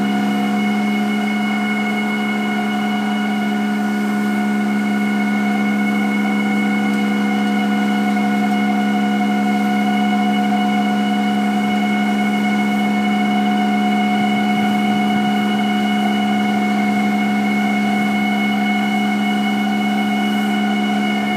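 A steady drone of several held tones, strongest in a low hum, unchanging throughout.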